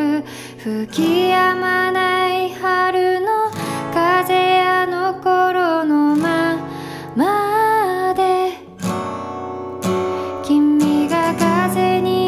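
Background music: a melodic song with held notes and a sharp upward slide just past the middle.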